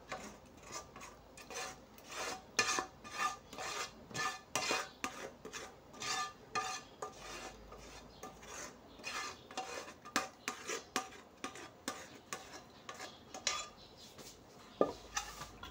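A spatula scraping sauce and chicken feet out of a frying pan into a cooking pot, in a run of short repeated scrapes and knocks against the pan, about two a second.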